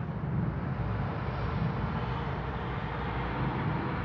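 Distant thunder rumbling steadily, a low continuous roll with a faint hiss over it.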